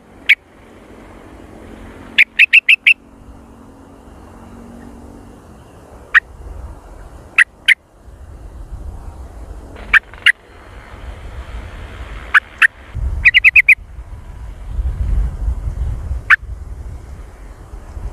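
Yellow-vented bulbul (trucukan) calling: loud, sharp, short call notes, some single and some in quick runs of four or five, repeated every second or two. A low rumble rises in the background about two-thirds of the way through.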